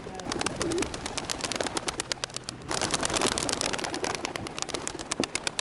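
A flock of pigeons with rapid clicking wing claps and flapping, and a brief low coo about half a second in.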